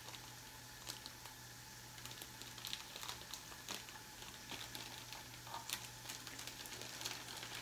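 Plastic food package being picked and pulled at to get it open: faint, scattered clicks and short crinkles over a steady low hum.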